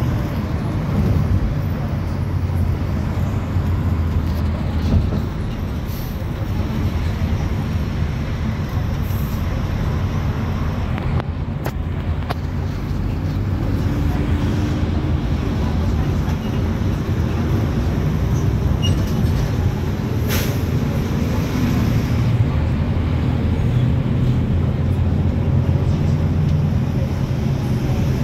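City bus running, heard from inside the passenger cabin: a steady low engine drone with road and traffic noise. A faint rising whine comes in around the middle.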